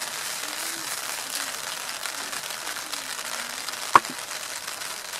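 Steady background hiss with a single sharp click about four seconds in.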